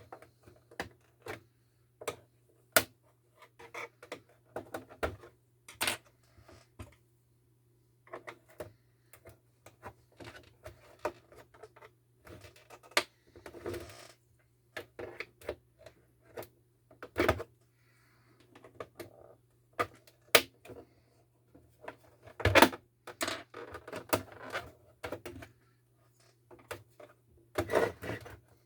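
Irregular clicks, taps and short rattles of hands working on a monitor's casing and parts, with a steady low hum underneath.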